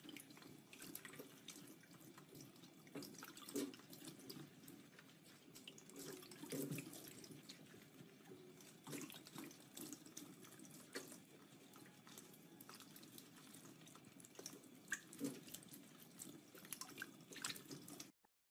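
Faint, quiet room sound with a low steady hum and scattered small soft clicks and ticks; it cuts off abruptly near the end.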